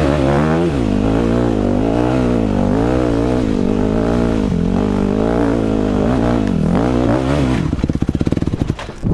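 2006 Yamaha 250 dirt bike engine revving hard up and down in repeated surges on a steep hill climb. About three-quarters of the way in, the steady note breaks into a slow, uneven chugging as the engine bogs down at low revs on the steep face.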